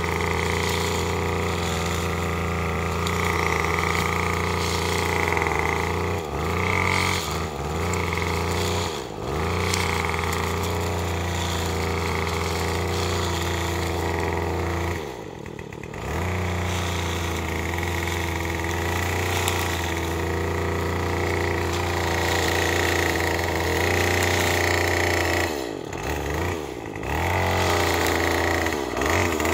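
Small gas string trimmer engine idling unevenly, its speed sagging and picking back up several times, with the deepest dip about halfway through. It is running rough and struggling to stay going, and it needs adjusting.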